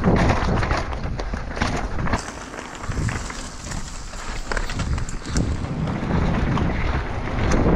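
Wind buffeting the microphone over the rattle, knocks and tyre noise of a downhill mountain bike being ridden down a dirt course.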